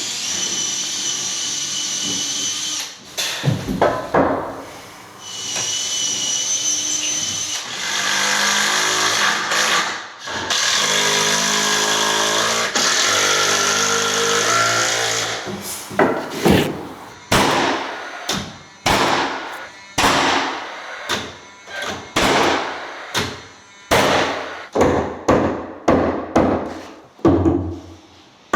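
A power tool runs in three stretches with a steady high motor whine. Then comes a series of a dozen or more sharp knocks, a second or less apart.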